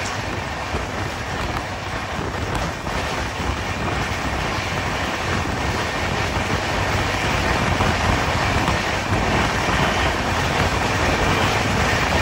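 Express train running at speed, heard from an open coach door: a steady rolling noise of the wheels on the rails, slowly getting louder.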